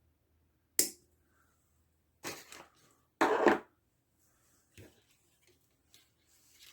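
Handling of small tools and parts at a workbench: a sharp click about a second in, two short rustling scrapes in the middle, the second one louder, and a few faint clicks near the end.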